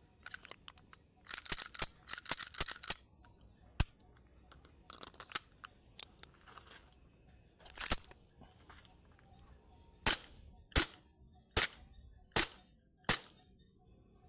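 Tokyo Marui Glock 17 Gen 4 gas-blowback airsoft pistol with a custom steel slide: rattling clicks and clacks of the slide and parts being handled, then five sharp shots about three-quarters of a second apart, each with the snap of the slide cycling.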